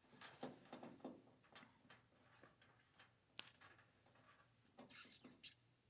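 Faint scattered clicks and small knocks of hand tools and loosened screws being handled, with one sharp click about three and a half seconds in.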